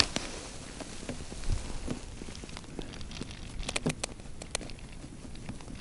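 Quiet handling noise: a few faint scattered clicks and rustles from gloved hands and clothing working a small winter jigging rod.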